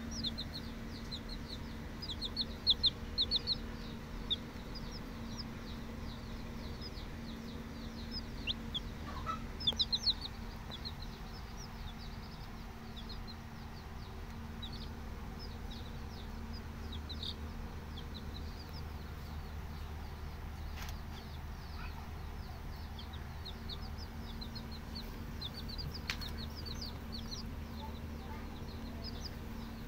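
Young chicks peeping: short, high, falling calls repeated in quick runs, thickest a couple of seconds in and again about ten seconds in. A steady low hum runs underneath.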